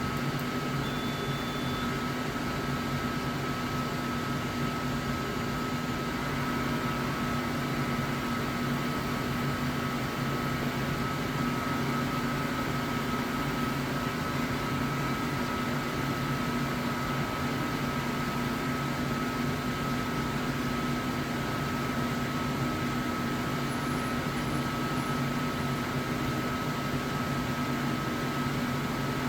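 Refinecolor CF60 DTF roll film printer running its ink-load cycle: a steady mechanical hum with a constant high tone, the pump drawing ink through the lines to the print heads.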